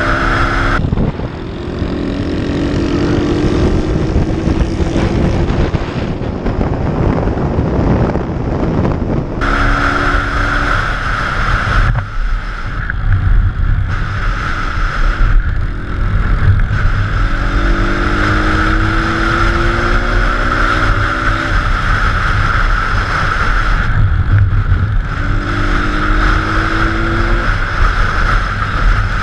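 Small single-cylinder four-stroke pit bike engine under way, its pitch climbing in several separate pulls as the bike accelerates and changes gear. Wind buffets the helmet-mounted microphone underneath.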